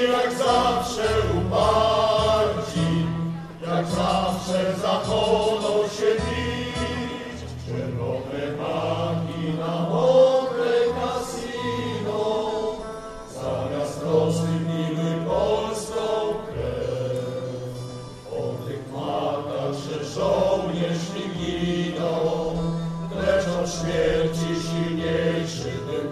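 Choir singing with held low notes beneath.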